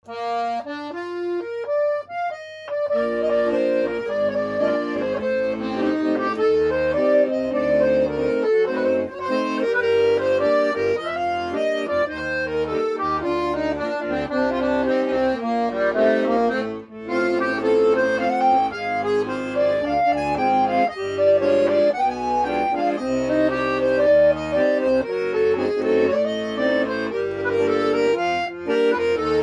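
Piano accordion playing a Romanian hora: a quick melody of many notes, with the left-hand bass and chords coming in about three seconds in. There is a short break about seventeen seconds in.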